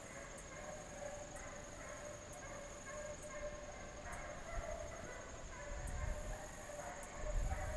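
Hunting hounds baying in the distance on a chase, long drawn-out cries that come and go. A low rumble builds in the second half.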